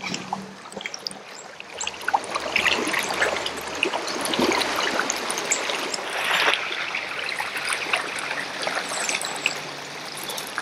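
Swift river current running and trickling around a kayak's hull and a fallen log, with many small splashes and drips.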